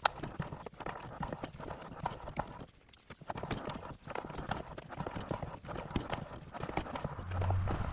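Irregular clinks and knocks of metal tools and parts being handled at a workbench, with a brief low hum near the end.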